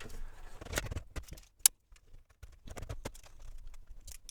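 Scattered clicks, knocks and light rattles of computer hardware being handled as a power supply is fitted into a server case, with one sharp click a little under two seconds in.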